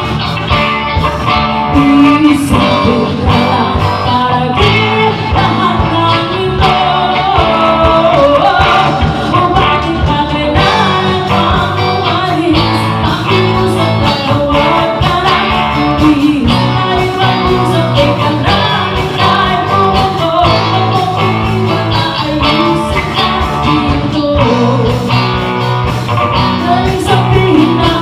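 A band playing a cover song: a singer over electric guitar, bass and drums with a steady beat.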